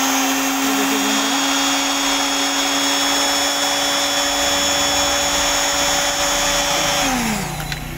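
Repaired sewing machine motor, fitted with a new armature and carbon brushes, running freely at speed with a steady whine over a hiss: a test run showing it is ready to use. About seven seconds in it is switched off and the whine drops as it winds down.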